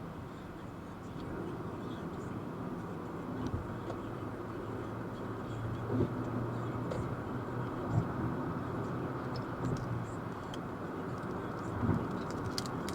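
Freeway driving noise: a steady vehicle and tyre drone on the road, with a few faint sharp ticks scattered through it.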